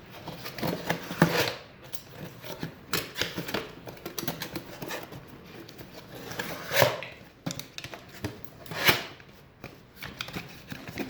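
Parts of a display rack being handled and fitted together: scattered clicks, knocks and rubbing, with a few louder knocks about a second in and twice in the second half.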